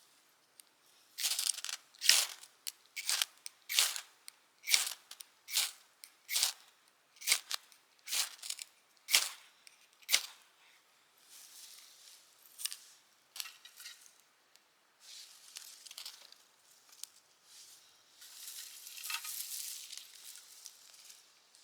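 A run of about a dozen quick, hissy scraping strokes, roughly one a second, then softer, irregular rustling and scraping.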